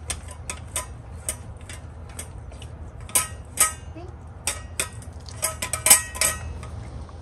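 A dachshund eating from a stainless-steel bowl set in a wire stand: irregular clinks and taps as its teeth and tongue hit the metal bowl. The clinks come quicker and louder in a cluster near the end.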